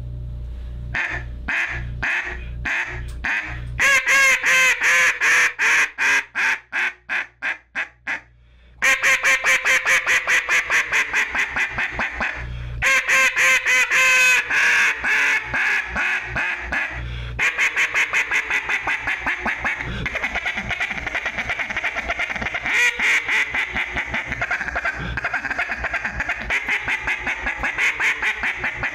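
Two Stroke acrylic double-reed cutdown duck call (0.14 mil top reed, 0.10 mil bottom reed, step-bore tone board) blown in a routine of raspy duck quacks. A few single quacks come first, then a long calling string that falls away in volume, then more strings, and from about two-thirds through a long, fast, rapid-fire chatter of short notes.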